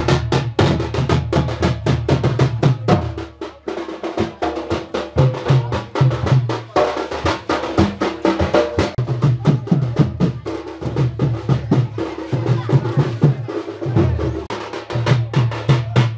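Traditional festival drums beating a fast, dense rhythm, deep booming strokes under rapid sharp strikes, briefly thinning out a few seconds in.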